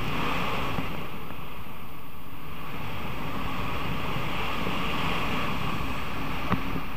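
Steady rush of wind over the microphone of a tandem speed wing in fast flight, with one short click about six and a half seconds in.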